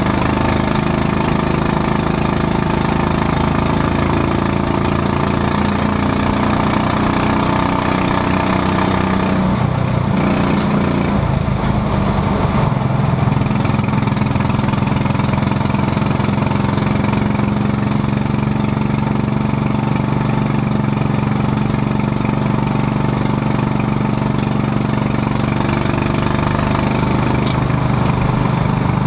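Quarter midget race car's small single-cylinder engine running steadily, heard from inside the cockpit, with its pitch shifting and wavering briefly about ten seconds in.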